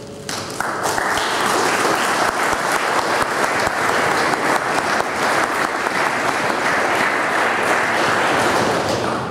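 An audience applauding: the clapping starts about half a second in, holds steady, and dies away near the end.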